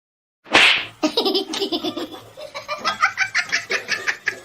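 Person laughing hard in rapid, breathy pulses, starting about a second in, just after a sudden loud burst of noise.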